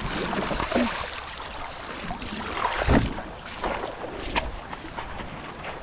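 Shallow river water splashing irregularly as someone wades through it, over the steady rush of the flowing stream; the loudest splash comes about three seconds in.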